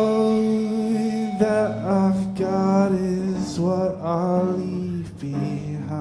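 Live band music during a song: long held notes that bend in pitch over a steady low note, with no words sung.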